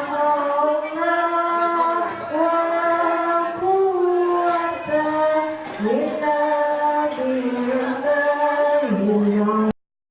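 Salawat, an Islamic devotional song, sung by a high voice in a slow melody with long held, sliding notes. It cuts off abruptly near the end into dead silence.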